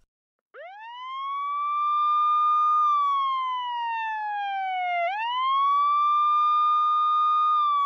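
A siren wailing. It starts about half a second in and sweeps up to a steady high tone, falls slowly, then sweeps up again about five seconds in and holds.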